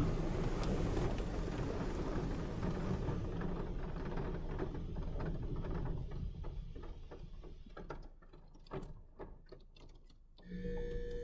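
Water spray from a Futura Revolution touchless car wash hitting the car, heard muffled from inside the cabin. It dies down about halfway through to scattered ticks.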